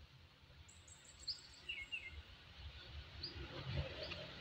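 Small birds chirping: a handful of short, high calls and a brief thin trill, spaced irregularly over a faint outdoor background. A low rumble builds from about halfway through.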